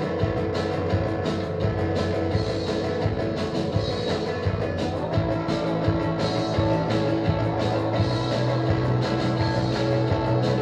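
Live rock band playing a shoegaze-style song: layered, sustained electric guitars over a steady drum beat.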